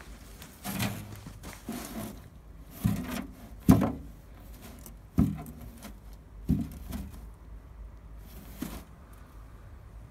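Wooden-framed wire-mesh box trap holding a caught polecat, knocking and rubbing as it is handled: about seven separate knocks and scrapes, the loudest a sharp knock about four seconds in.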